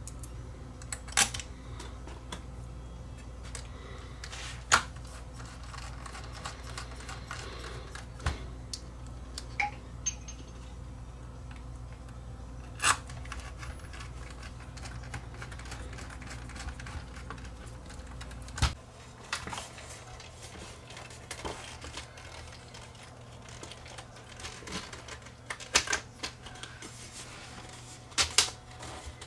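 Irregular clicks and knocks from parts and the metal amplifier chassis being handled on a workbench, over a steady low electrical hum that cuts off with a sharp click about two-thirds of the way through.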